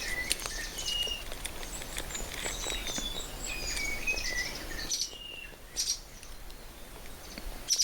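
Birds chirping in many short, high whistled notes, several sliding downward, over a steady background hiss; the hiss drops away about five seconds in, leaving a few sharper chirps.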